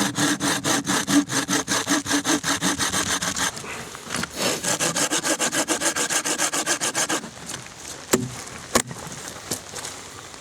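Hand saw cutting through dry dead-standing hardwood in quick, even back-and-forth strokes, with a short break about three and a half seconds in; the sawing stops about seven seconds in, followed by two sharp knocks.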